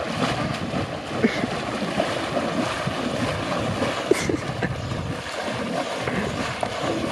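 Water splashing and churning around a person's legs as he wades quickly through shallow sea water, a continuous irregular sloshing.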